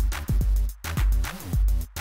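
Electronic music with a deep bass drum beat, a little under two beats a second, and low bass notes that slide down in pitch.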